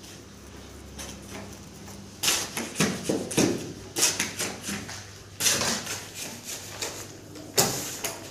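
Steel shovel scraping across a concrete floor and cutting into a heap of sand-and-cement mortar as it is mixed. It comes as a run of rough scrapes, a little more than one a second, starting about two seconds in.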